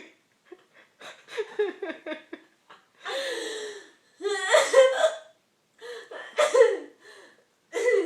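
A person hiccuping several times in short, separate jerks, with laughter mixed in between the hiccups.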